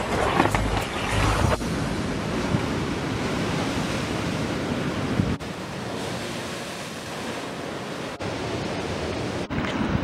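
Sea surf breaking and washing over rocks, a steady rushing noise, with wind on the microphone. A louder low rumble fills the first second and a half, then stops abruptly.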